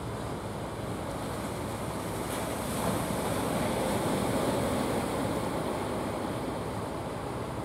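Sea surf rushing on the shore, with wind on the microphone. The rush builds about three seconds in and eases near the end.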